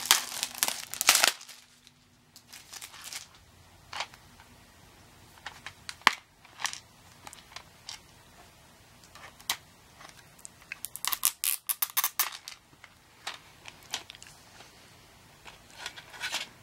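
Cellophane shrink wrap crinkling as it is peeled off a plastic DVD case for about the first second. Then scattered clicks and taps of the plastic case being handled and opened, with a quick run of clicks about eleven seconds in and another short cluster near the end.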